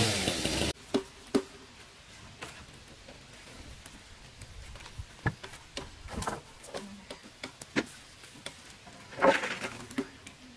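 A motorised power tool running steadily cuts off abruptly under a second in. Scattered light knocks and taps follow, with a louder cluster of clatter near the end.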